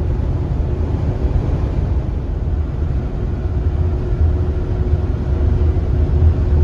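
Steady low road and engine rumble inside the cabin of a Mercedes E-Class car while it is being driven, with a faint steady hum above it.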